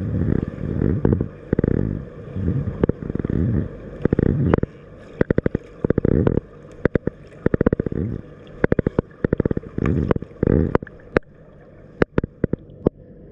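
Pool water heard through a submerged camera: muffled low rushing surges, roughly one a second, with many sharp clicks and pops scattered through.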